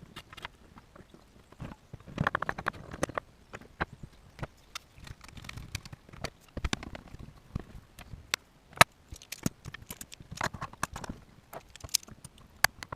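Irregular knocks and clatter of pieces of pallet wood being handled and tapped together, with no power tool running.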